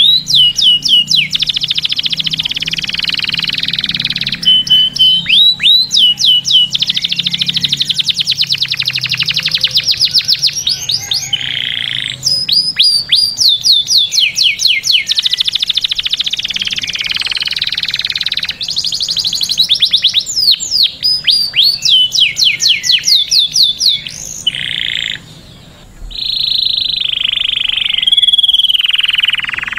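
Canary singing a long, nearly unbroken song: fast runs of rapidly repeated down-sweeping notes alternate with steady rolling trills, with a short break about 25 seconds in.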